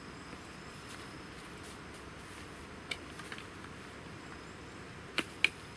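Helinox rocking feet being clipped onto the aluminium legs of a Helinox Chair One: a small click about three seconds in, a few faint ticks, then two sharp snaps a quarter of a second apart near the end as the foot seats on the legs, over a steady background hiss.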